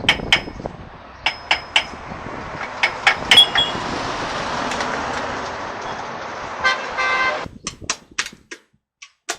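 Workshop metalwork sounds: a series of sharp metallic clinks and knocks, then a steady hiss lasting a few seconds, with a short horn-like toot near the end of the hiss.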